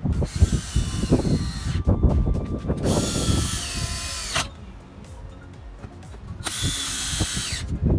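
DeWalt cordless drill running in three short spells, driving screws in a car door panel. Each run ends with a falling whine as the motor spins down.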